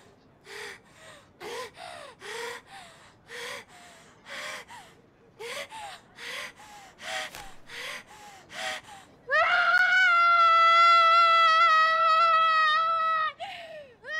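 A young woman gasping and sobbing in short, ragged breaths. About nine seconds in she lets out a long, loud scream held nearly level for about four seconds, pitch sagging slightly. She takes a sharp breath and starts a second scream near the end.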